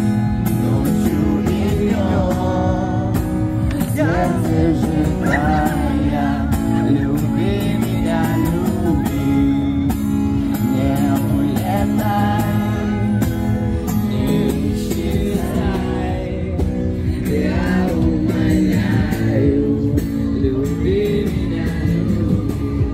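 A song playing: a singer's voice over a steady instrumental backing.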